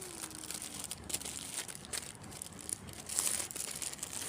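Packaging crinkling and rustling as it is handled, in irregular crackles with a louder burst about three seconds in.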